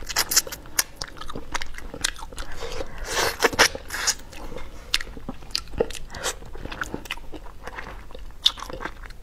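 Close-miked eating of spicy braised duck: irregular biting and chewing with sharp crunches and wet mouth clicks, and a denser run of crunching about three seconds in.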